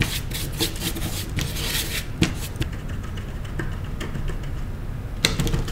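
Paintbrush strokes scratching and tapping on the painting surface: a quick run of short scratchy strokes, then a quieter stretch, with a few more near the end.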